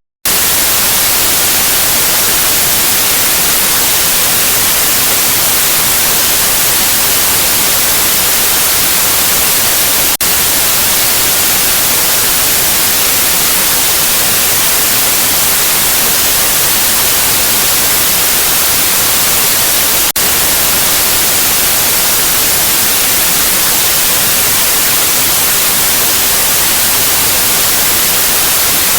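Continuous static white noise: a steady, loud, hiss-heavy rush that is strongest in the high end. It cuts out very briefly right at the start and dips for an instant twice, about every ten seconds.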